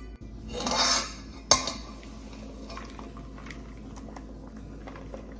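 Kitchenware being handled while blended orange juice is set up for straining: a short rush of noise about a second in, a sharp clink just after, then light scattered taps.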